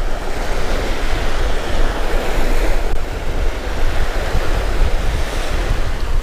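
Small surf waves breaking and washing up a sandy beach, with wind buffeting the microphone as a steady low rumble.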